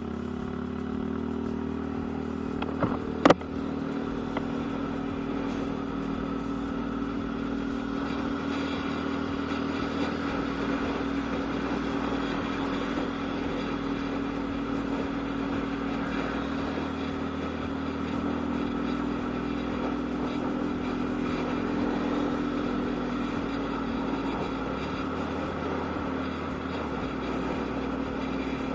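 Yamaha Aerox scooter's single-cylinder engine running at a steady, near-constant pitch while riding, with one sharp click about three seconds in.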